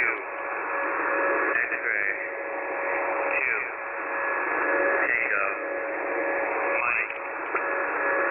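Shortwave single-sideband receiver on the 11175 kHz HFGCS frequency hissing with band-limited static between transmissions, with two steady whistles and faint falling swishes about every one and a half to two seconds.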